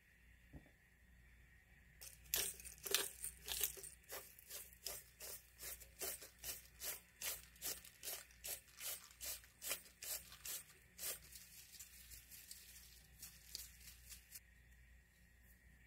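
Hand pepper mill being twisted over a salad, grinding peppercorns in a quick, even run of grinding strokes, about two to three a second. The strokes grow fainter after about eleven seconds and stop shortly before the end.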